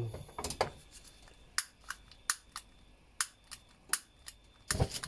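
Long-nosed utility lighter clicking repeatedly as its trigger is pulled at a gas burner, about ten sharp clicks a few tenths of a second apart. Near the end there is a single louder, deeper thump.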